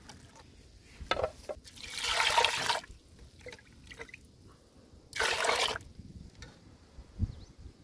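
Water splashing and sloshing in a metal pot as fish roe is put into the water and washed by hand, in two louder bursts about two and five seconds in.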